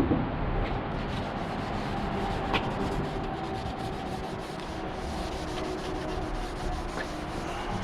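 Steady scrubbing on the car's front-end metal, cleaning it before painting.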